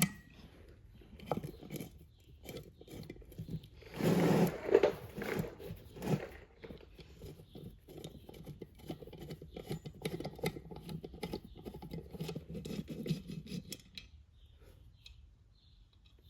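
Hand ratchet and socket clicking in quick runs on a three-wheeler's wheel nuts, with metal tool rattles and a louder scraping clatter about four seconds in.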